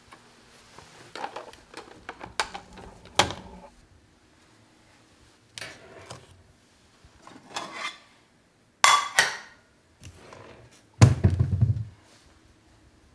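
Kitchen handling sounds: a string of separate clicks, knocks and clinks as cabinet doors and dishes are handled, with one bright ringing clink partway through and a heavier thump near the end.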